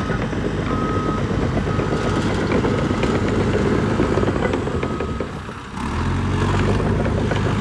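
Cat D3K 2XL bulldozer's diesel engine running steadily, with a repeating short beep through the first half. The engine sound dips briefly about five and a half seconds in, then comes back stronger and deeper.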